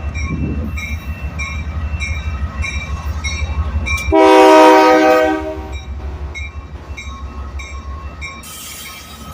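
Diesel freight locomotive running by with a low, steady engine rumble and a bell ringing about twice a second. About four seconds in, the locomotive's air horn gives one loud chord blast of about a second and a half.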